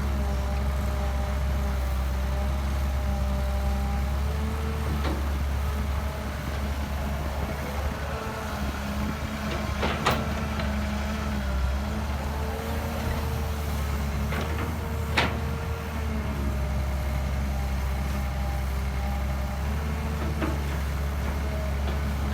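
Hydraulic excavator's diesel engine running steadily under load, with a hydraulic whine that wavers up and down in pitch. Three sharp knocks stand out, about five, ten and fifteen seconds in.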